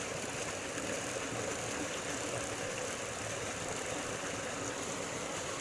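Steady rushing of stream water, an even hiss with no breaks or sudden sounds.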